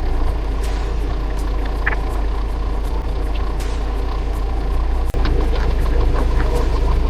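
A steady engine-like rumble with scattered clicks and knocks over it.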